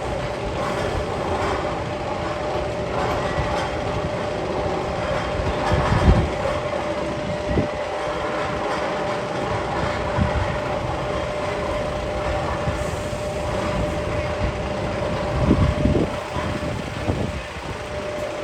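Sound effect played in the Magnum XL 200's tunnel: a steady, rail-like rumbling with a constant hum, and a few heavier thumps (one about six seconds in, two close together near the end).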